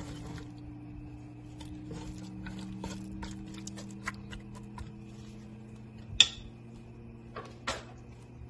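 Marinated chicken starting to heat in a pot on a lit stove: scattered light ticks and crackles over a steady low hum, with a sharper clack about six seconds in and another shortly before the end.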